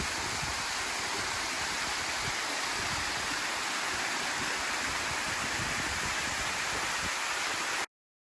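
Water of Stony Kill Falls pouring and rushing in a steady, even wash, cut off abruptly near the end.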